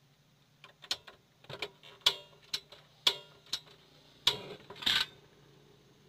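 Hot oil in a wok spitting and popping around a battered lotus flower as it fries: irregular sharp pops with a short crackling flurry about four to five seconds in. A faint steady hum lies underneath.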